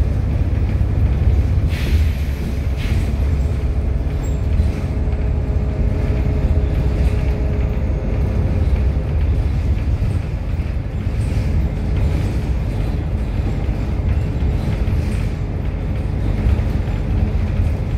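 Steady low rumble of a moving road vehicle's engine and tyres heard from inside the vehicle, with a faint steady hum for a few seconds in the middle.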